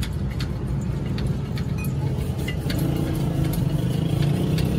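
A vehicle engine idling with a steady low rumble, with faint scattered light clicks over it.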